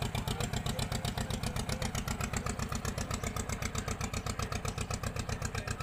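A motor boat's engine running steadily at cruising speed, with a fast, even chugging beat of roughly nine or ten pulses a second.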